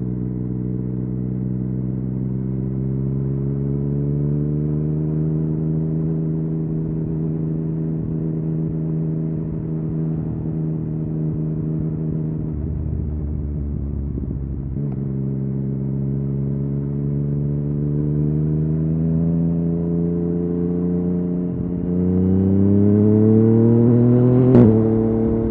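Yamaha MT-09's three-cylinder engine through an Akrapovic exhaust, under way with its pitch climbing slowly. Near the end it pulls hard, louder and rising fast, then gives a sharp crack as it shifts up and the pitch drops.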